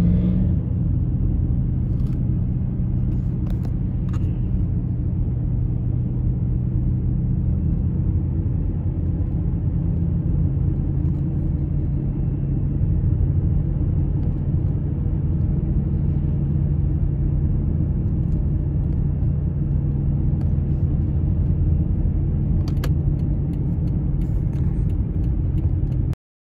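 Car driving, heard from inside the cabin: a steady low rumble of engine and road noise, with a few faint clicks. It cuts off suddenly near the end.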